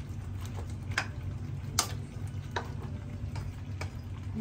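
Cookware on a gas stove clinking: about five short sharp clicks and knocks, the loudest near the middle, over a steady low hum.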